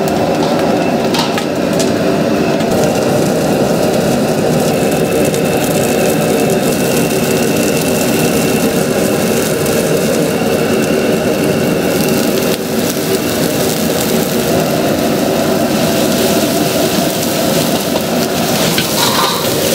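Steady roar of a restaurant gas wok burner at high flame, with a faint hum underneath. Near the end comes a short clatter and sizzle as food goes into the hot wok.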